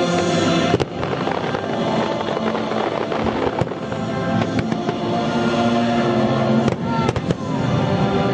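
Fireworks bursting over loud music. There are sharp bangs near the start and again about two-thirds of the way through, and a dense run of crackling in between.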